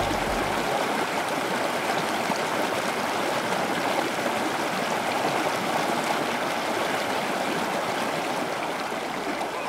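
Steady rush of a flowing mountain river.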